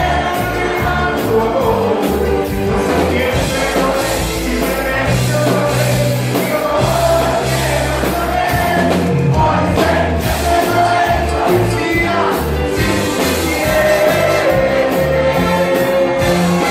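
Live concert music with singing: a band plays a steady beat and a voice sings held lines.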